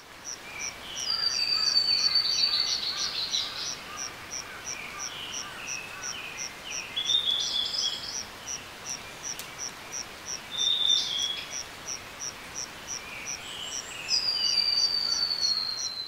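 Autumn forest ambience: an insect chirps steadily at about three chirps a second while birds call over it, loudest in a long falling call near the start and again near the end.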